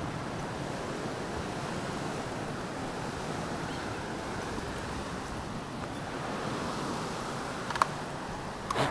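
Steady rush of a rocky brook and its falls, with two short sharp clicks near the end.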